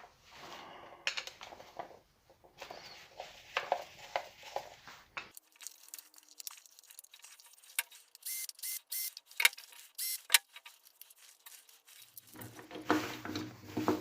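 Scattered clicks, taps and rustling from hands working with tools and small metal parts, with a few short squeaky tones about eight seconds in.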